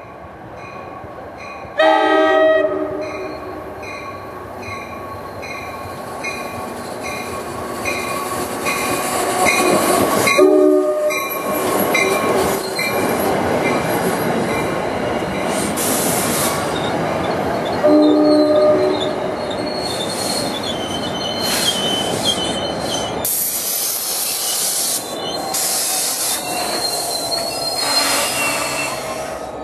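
New Jersey Transit push-pull train arriving, led by a Comet cab car. Its bell rings steadily and its horn gives short blasts, one about two seconds in and another near the middle. Then the coaches roll past with a rumble and high wheel squeal on the curve.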